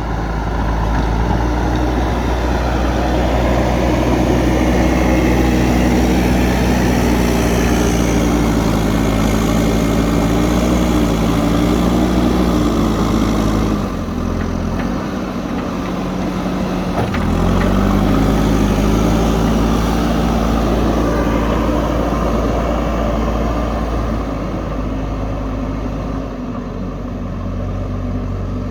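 JCB backhoe loader's diesel engine running hard, its pitch shifting as the load changes. About halfway through the revs drop for a few seconds, then climb back up.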